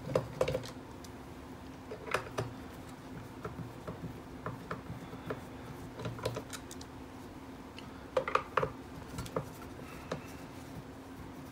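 Scattered light clicks and taps of plastic and small metal parts as a Kyoritsu KEW1062 multimeter's plastic case is handled and its self-tapping case screws are backed out and set down, with a quick run of clicks about eight seconds in.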